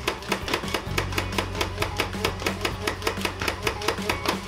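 Nerf Rival Khaos MXVI-4000 flywheel blaster firing full-auto: an even, rapid stream of foam rounds, about five shots a second.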